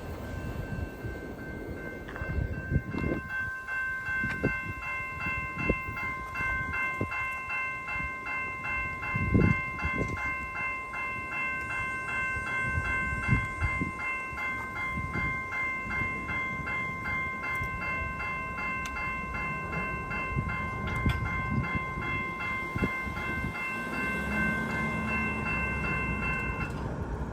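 Level-crossing warning bells ringing in a fast, even rhythm, starting about two seconds in and cutting off shortly before the end. Under them, a GO Transit commuter train rumbles along the rails with irregular thumps from its wheels.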